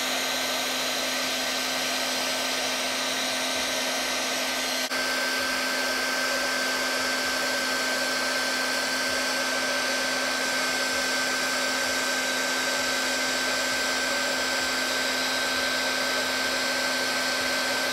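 Hot-air plastic welding gun's blower running steadily as the speed tip lays HDPE welding rod into an inside seam: a constant airy whir with a steady hum.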